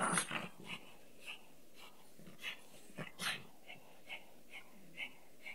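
A small dog panting in quick short breaths, about two to three a second, after a sudden loud burst of sound right at the start.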